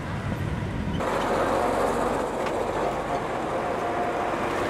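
Outdoor roadside ambience dominated by road-traffic noise. The background changes abruptly about a second in, from a low rumble to a brighter, busier noise.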